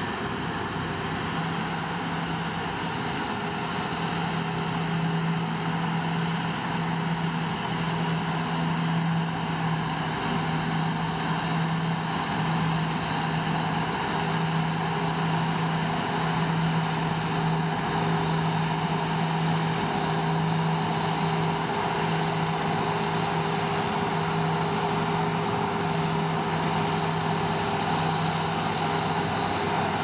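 Claas Lexion 750 combine harvester running under load while cutting winter barley: a steady engine and threshing drone with a constant low hum. It grows a little louder over the first few seconds as the machine draws nearer.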